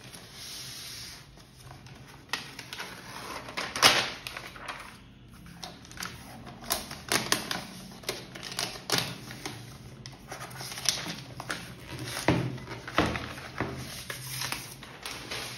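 Protective wrap being unfolded and peeled off a MacBook Pro 14-inch: a run of rustling and sharp crackles, loudest about four seconds in and again late on.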